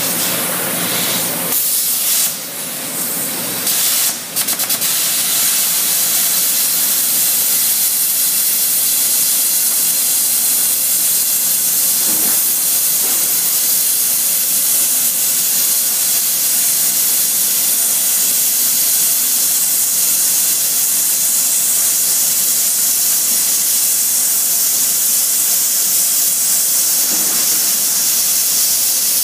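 Metal-cutting torch cutting through thick steel plate, a loud steady hiss of the gas jet as it throws sparks. It breaks off briefly about two and four seconds in, then runs on without a break.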